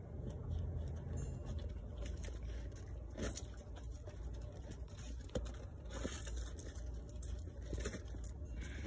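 A Corgi-Chihuahua mix dog's paws and a ball scuffing and crunching through dry leaves and wood mulch as the dog noses and paws at the ball, with scattered crackles over a steady low rumble.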